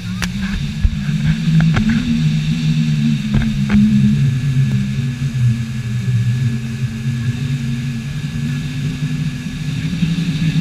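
A vehicle engine running steadily at a fairly constant speed, a low drone that wavers slightly in pitch. A few sharp clicks come in the first few seconds.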